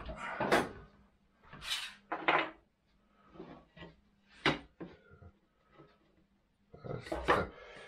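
Wooden boards being handled and set down: a handful of separate hollow knocks and clatters with quiet gaps between them.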